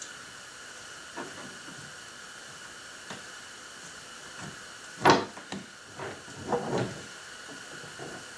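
Scattered knocks and scrapes from parts being handled at the side of a Hobie Pro Angler kayak, over a steady hiss, with the loudest knock about five seconds in.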